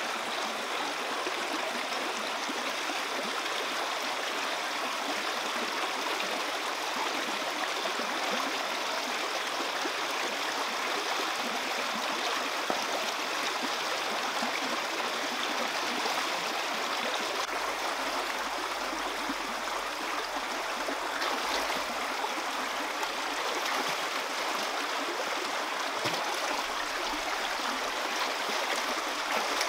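Running water of a forest stream, a steady rushing and trickling with no break.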